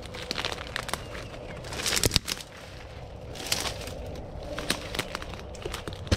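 Dry leaf litter, sticks and brush crackling and rustling as someone moves about and settles into a spot on the forest floor. Sharp crackles come throughout, the loudest about two seconds in and another near the end.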